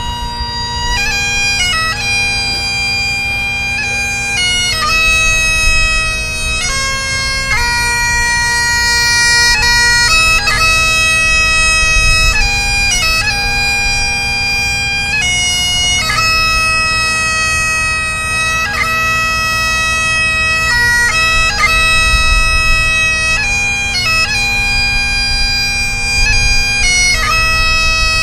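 Great Highland bagpipes played solo: the steady drone under a slow melody of long held notes on the chanter.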